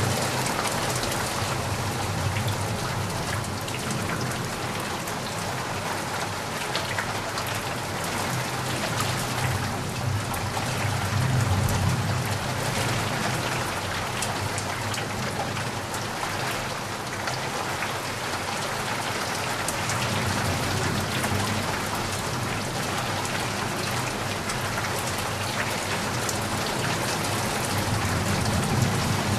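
Steady rain: an even hiss of falling drops dense with fine individual drop ticks, with a low rumble underneath that swells and fades a few times.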